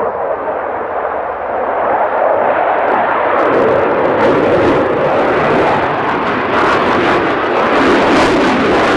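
Dassault Rafale M jet fighter's twin Snecma M88 turbofans in a display pass: a continuous rushing jet noise that grows louder and brighter about three seconds in, with a crackle from then on.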